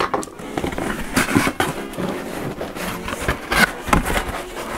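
Paper and cardboard packaging being handled and unpacked: rustling, scraping and light knocks coming in an irregular string of short bursts.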